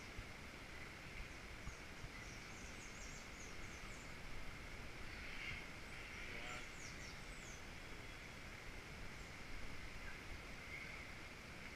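Outdoor ambience of steady hiss with small birds giving short, thin, high chirps, in clusters about three seconds and six and a half seconds in.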